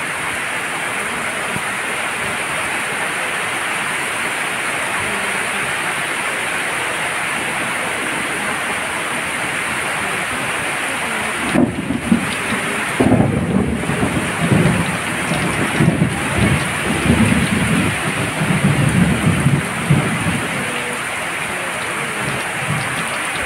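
Heavy rain falling steadily, with thunder rumbling from about halfway through for roughly ten seconds.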